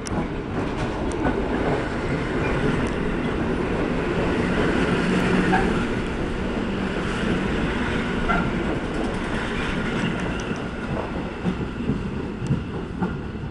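Electric multiple unit train running past close by along the station platform: a steady rumble of wheels on rails, loudest midway. Near the end it turns into separate wheel clicks over the rail joints.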